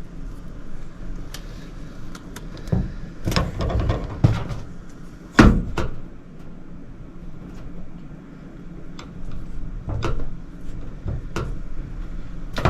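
Scattered knocks and clunks from hands-on repair work, with the loudest knock about five and a half seconds in.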